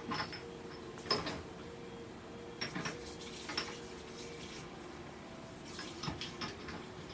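A few light clicks and clinks, scattered and irregular, the loudest about a second in, over a faint steady hum.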